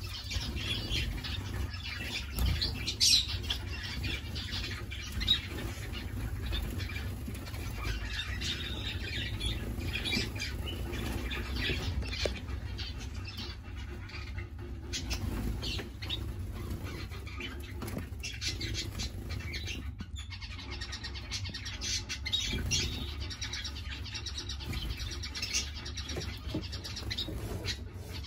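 A mixed flock of aviary finches, Java sparrows among them, chirping and calling in many short high notes, with a few wing flutters, over a steady low hum.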